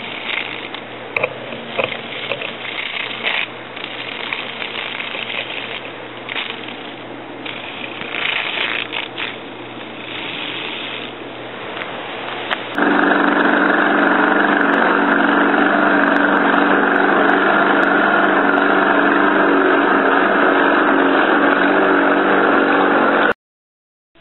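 Irregular rustling and knocking, then about halfway through a small 1/20 hp, 1650 rpm, 125-volt electric motor driving a K'nex mower blade starts suddenly and runs loud and steady at one constant pitch. The sound cuts off suddenly near the end.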